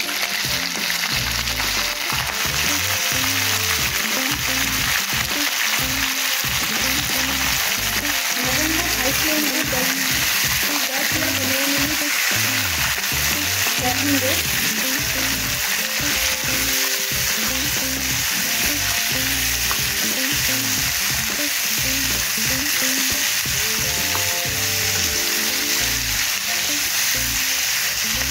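Raw mutton pieces sizzling steadily as they fry in hot oil in a non-stick wok, stirred with a ladle: the meat freshly added to the oil and whole spices, starting to sear.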